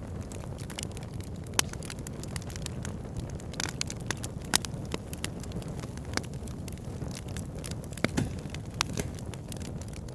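Fire burning in a fireplace: a steady low rush with irregular sharp crackles, several a second, and a few louder pops.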